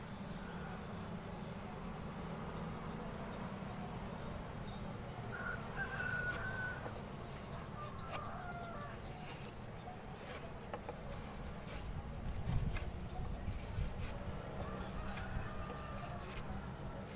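A rooster crowing a few times, first about five seconds in and again near the end, over a steady low rumble with scattered light clicks.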